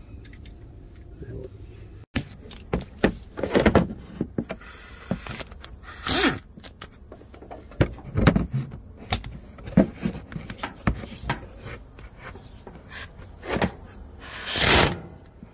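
Metal tools clicking and knocking against a truck's underside, broken by a few short bursts of a power ratchet turning out a bolt; the longest and loudest burst comes near the end.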